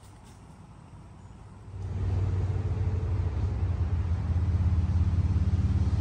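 Low, steady engine rumble of a motor vehicle close by, starting abruptly about two seconds in.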